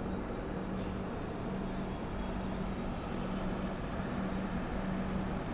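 Steady low hum and hiss of a stopped train waiting at a station, with a faint high chirp that pulses evenly about three times a second from about two seconds in.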